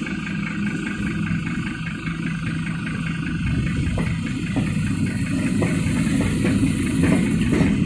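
PKP class EP07 electric locomotive passing over a level crossing at the head of a passenger train: a steady low rumble that grows a little louder as it comes by, with a few sharp clicks from about halfway through.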